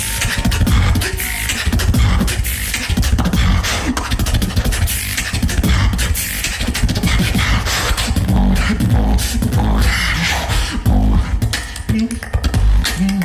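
Solo beatboxing: a dense stream of vocal kick, snare and click sounds over a heavy, deep bass, with short pitched bass notes joining in during the second half.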